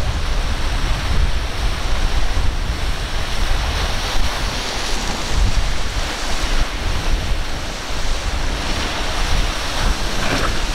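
Wind gusting hard across the microphone, a heavy rumbling buffet, over the steady rush of surf and breaking waves.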